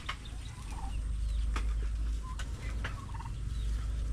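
Domestic turkey giving a few short, faint calls over a steady low rumble.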